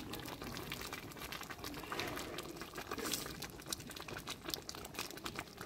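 A large cauldron of dried-fig jam boiling, with many small pops and crackles.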